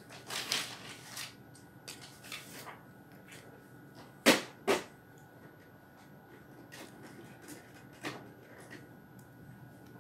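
Objects being handled: scattered light clicks and knocks with brief rustling, then two sharp clicks about half a second apart a little after four seconds in.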